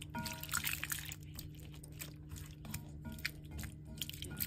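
Thin beef slices cooking in sauce in a pan, sizzling with a run of irregular wet crackling pops over a steady low hum.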